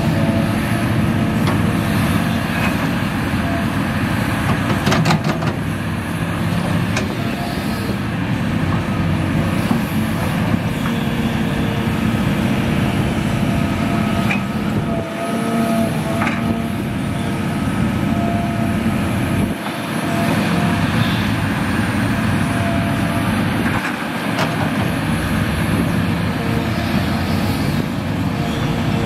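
Hitachi Zaxis 350H excavator working, its diesel engine running steadily under load with a thin whine over the rumble. The rumble dips briefly three times in the second half, and there are a few sharp knocks, two close together a few seconds in and one more midway.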